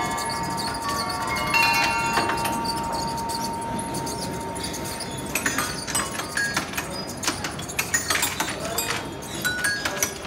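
Hanging metal tube chimes ringing on after mallet strikes, one note held and slowly fading, with a couple more notes struck about a second and a half in. From about five seconds in, a quick run of short, dry notes comes from a xylophone-type bar instrument struck with a mallet.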